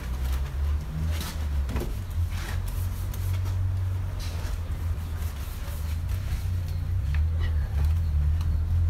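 Wash mitt rubbing over a soapy car body panel in short wet scrubbing rustles, over a steady low rumble.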